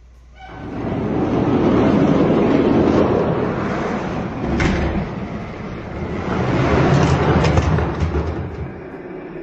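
Spin Master die-cast monster trucks rolling down orange plastic Hot Wheels track lanes: a steady rolling rumble of hard toy wheels on plastic that swells twice, with a sharp clack a little before halfway.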